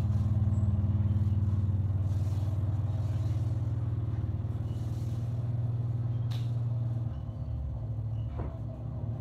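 A vehicle engine running with a steady low hum, which changes and drops about seven seconds in.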